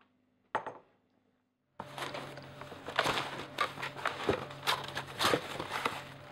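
A single sharp knock, then from about two seconds in a busy run of rustling and clattering as cardboard boxes are handled and rummaged through, with a steady low hum underneath.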